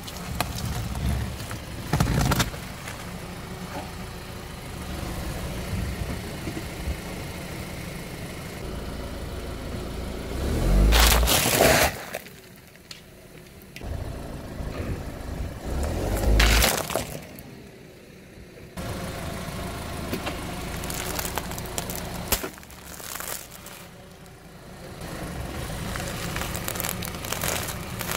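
A car's tyre rolling slowly over objects on paving and crushing them, with cracks and crunches over the low, steady hum of the idling engine. Two louder bursts stand out, about eleven and sixteen seconds in.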